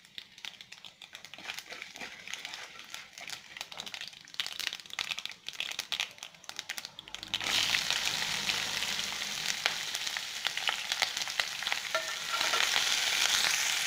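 Chana dal and urad dal crackling in hot sesame oil in a kadai, stirred with a wooden spatula. About seven seconds in, chopped onion and green chillies go into the oil and a much louder, steady sizzle takes over.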